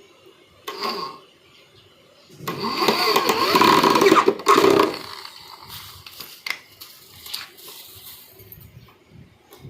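A motor-driven machine runs loudly for about two and a half seconds, starting a little over two seconds in, after a shorter burst of the same kind near one second in.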